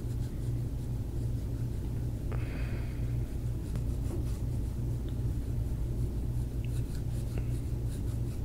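Steady low hum of room noise, with a brief soft hiss a little past two seconds in and a few faint ticks.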